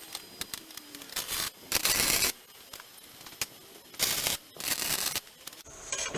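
Four short, harsh hissing bursts of metalworking noise, each under a second long, with faint ticks between them.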